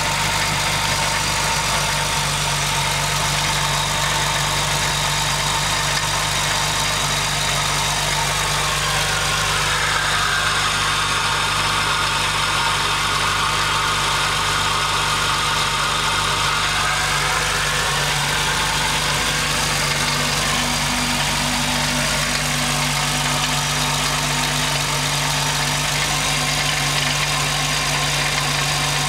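2005 Jeep Wrangler Rubicon's 4.0-litre inline-six idling cold with the accessory belt off, with a tick that comes only on cold starts and goes away as the engine warms up.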